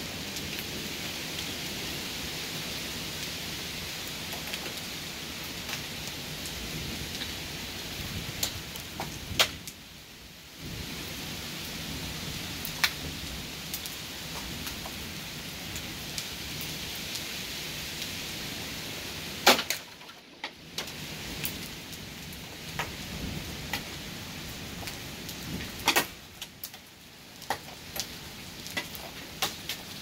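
Heavy rain falling steadily, with scattered sharp ticks of drops striking close by. The rain dips briefly quieter twice.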